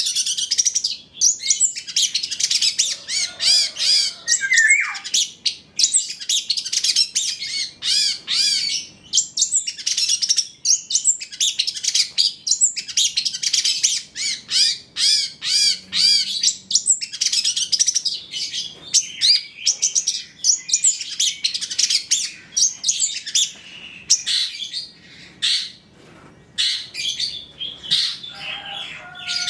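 Long-tailed shrike (cendet) singing a rapid, unbroken chattering song of high chirps and scratchy notes, full of mimicked phrases. It thins out a little near the end.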